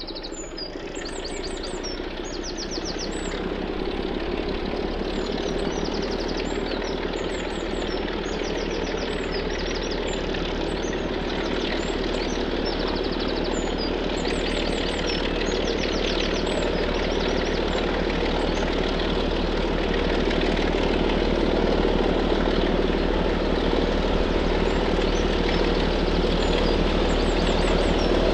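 Diesel train engine growing steadily louder as it approaches, with small birds chirping throughout.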